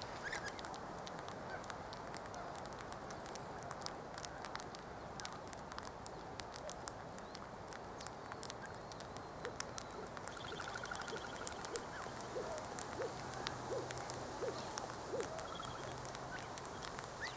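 Quiet outdoor ambience with faint distant bird calls: a short trill about ten seconds in and several short low notes in the second half. Scattered faint clicks and a faint low hum in the later part run underneath.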